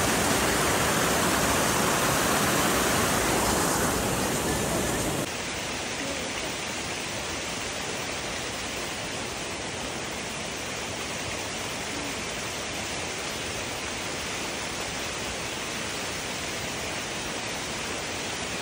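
Steady rush of a small cascading stream running over rocks. About five seconds in it cuts suddenly to a quieter, even splash of a small waterfall pouring down a rock face.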